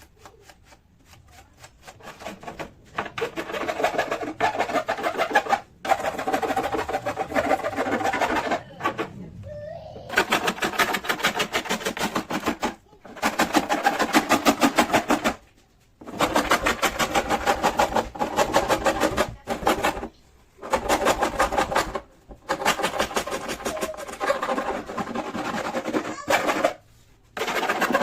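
A power tool running in repeated bursts of two to four seconds with short pauses between, each burst a fast rattle with a steady pitch.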